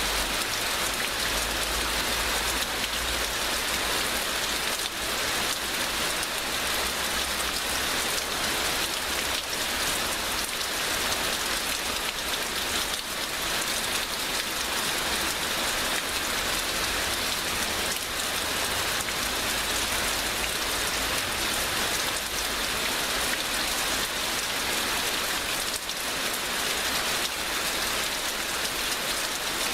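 Heavy rain falling steadily, a dense even hiss with many fine drop impacts on surfaces.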